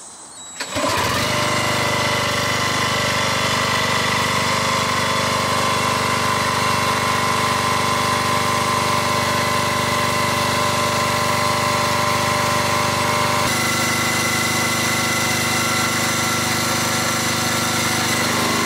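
Fibre-optic cable blowing machine starting up about a second in and running steadily, driving the fibre core through the duct with compressed air. Its tone shifts slightly about two-thirds of the way through.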